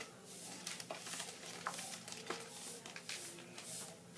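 Small plastic spoon stirring and scraping Nerunerune grape candy paste in its plastic tray: quick, irregular scrapes and taps as the powder-and-water mix is whipped to a thick, fluffy paste.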